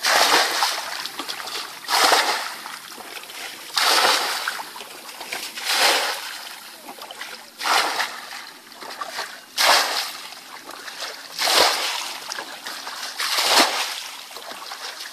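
Buckets of muddy water being poured out in a steady rhythm, a loud splash about every two seconds, eight in all, as a small pool is bailed out by hand to catch fish.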